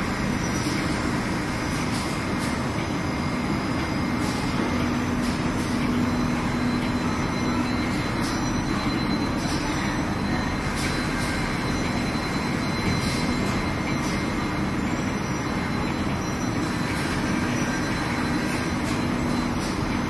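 Hoop industrial flatwork ironer and its conveyor running: a steady mechanical rumble with a constant low hum and faint, scattered ticks.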